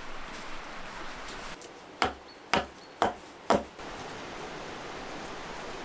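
Firewood being chopped: four sharp wooden strikes about half a second apart, over a steady rushing background.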